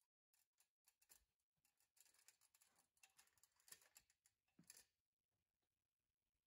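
Near silence, with faint scattered clicks and light scraping, a little busier in the middle.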